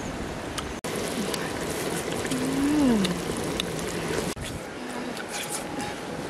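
Pot of octopus simmering over a wood fire, a steady bubbling hiss, with a person's short hummed "mmm" falling in pitch partway through.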